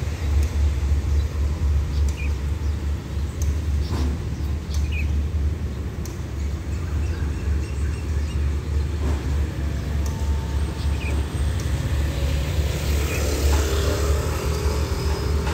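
Road traffic, cars and motorcycles going by, over a steady low rumble. A motorcycle engine is heard close by near the end.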